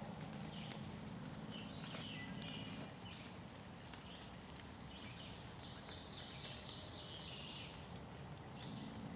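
Small songbirds singing in short chirping phrases, one longer trilling song about five seconds in, over a faint low hum that fades out about three seconds in.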